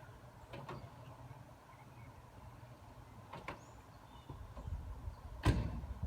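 Three sharp clicks or knocks, the last and loudest near the end, over a faint low rumble.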